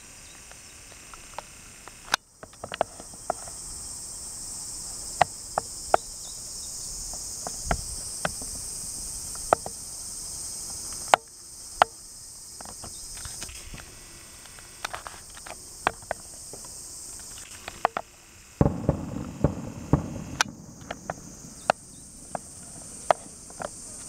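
A steady, high-pitched drone of a summer insect chorus, broken by many short, sharp clicks scattered through it.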